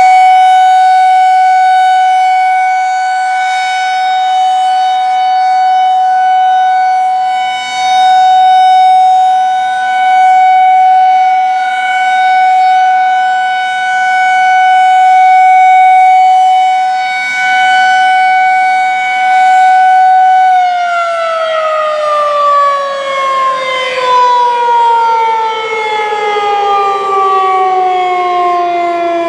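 Federal Signal 2001-SRN roundback electromechanical tornado siren sounding a steady alert tone that swells and fades in loudness as the siren rotates. About twenty seconds in, the signal ends and the siren winds down, its pitch falling smoothly as the rotor slows.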